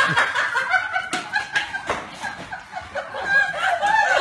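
A person laughing in high-pitched, cackling giggles.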